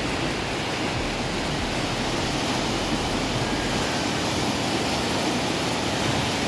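Rough, storm-driven surf breaking on the beach and shore rocks at high tide, a steady rushing noise with no let-up.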